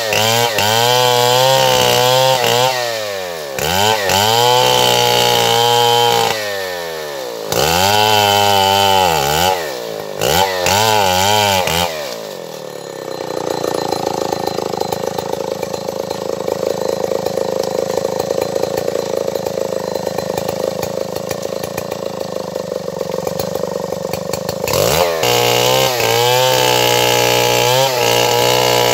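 Stihl 070 two-stroke chainsaw running at high revs, its pitch dipping and rising again and again. About twelve seconds in it drops to a lower, steadier note for about twelve seconds, the engine pulled down under load as it cuts wood, then revs back up to a high steady pitch near the end.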